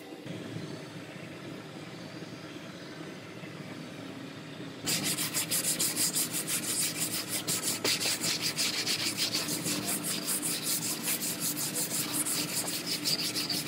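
Quiet scraping of a plastic spreader smoothing body filler on a car's quarter panel, then, about five seconds in, loud, quick back-and-forth strokes of hand-sanding the filler with sandpaper on a block, which carry on to the end.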